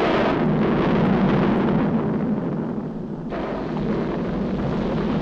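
Cartoon sound effect of a volcano erupting: a dense, continuous rumble that thins in its upper range about two seconds in and surges again a little after three seconds.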